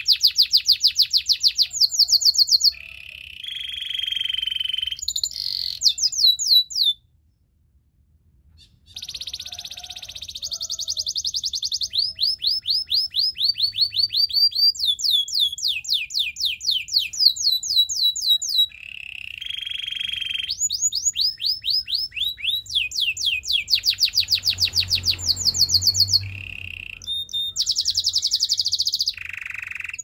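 White domestic canary singing: phrase after phrase of fast runs of repeated notes, with a few steadier buzzy notes between them and a short break about seven seconds in.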